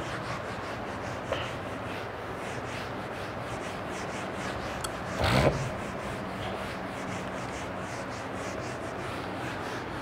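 Whiteboard eraser rubbing across a whiteboard, wiping off marker writing in quick repeated strokes. About five seconds in, a brief louder sound stands out.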